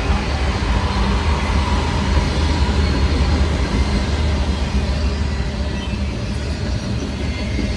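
BNSF diesel-electric freight locomotives and intermodal train passing close by: a loud, steady low rumble with rolling rail noise.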